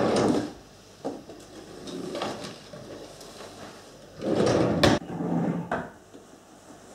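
Wooden kitchen drawers sliding open and shut several times as they are rummaged through, with a sharp knock a little before five seconds in.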